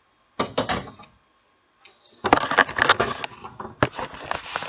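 Close-up handling noise of irregular knocks, scrapes and crackles. A short burst comes about half a second in, and a longer, denser run starts about two seconds in, as the pancake is turned in the pan with a spatula and the camera is moved.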